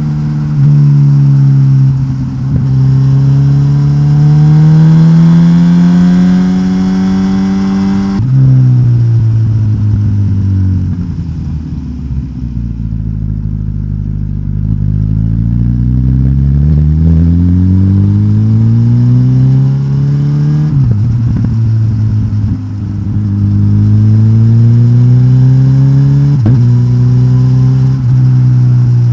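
Suzuki GSX-S1000GT's K5-derived inline-four engine, de-catted with the stock exhaust, pulling through the gears: the engine note climbs steadily and drops sharply at each upshift. A little under a third of the way in it falls away as the bike slows, then climbs again through two more shifts.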